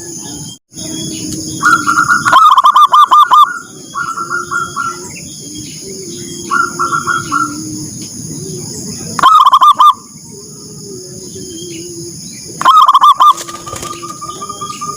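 Zebra doves (perkutut) cooing: repeated rhythmic trilling coos from several birds, with three much louder bursts of rapid quavering notes about two, nine and thirteen seconds in.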